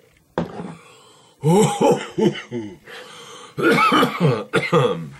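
A man's coughing fit: a first cough about half a second in, then two longer, hacking bouts of coughs.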